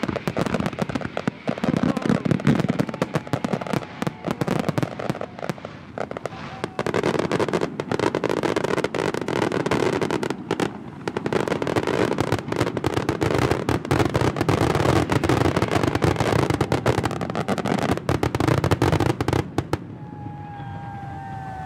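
Fireworks: a dense, continuous barrage of sharp bangs and crackling from bursting shells and low fountains, dying away about twenty seconds in.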